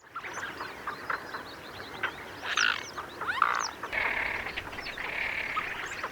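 Wetland chorus of croaking frogs mixed with many short bird chirps and calls, with a longer buzzing trill about two thirds of the way through.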